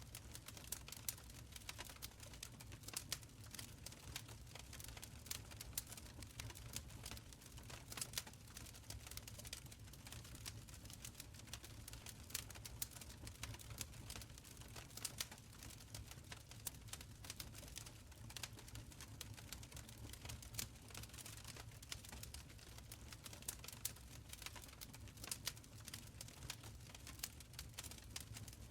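Wood fire burning in a stone fireplace: a soft low rumble under frequent, irregular sharp crackles and pops.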